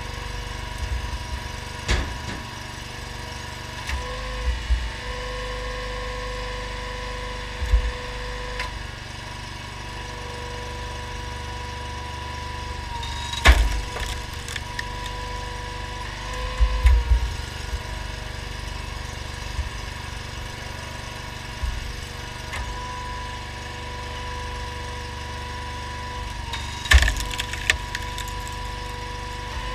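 Homemade hydraulic log splitter powered by a Honda GX690 V-twin engine, the engine running steadily with a constant hum while logs crack and split under the wedge. Sharp cracks come about two seconds in, about thirteen seconds in and near the end, with smaller knocks of wood between.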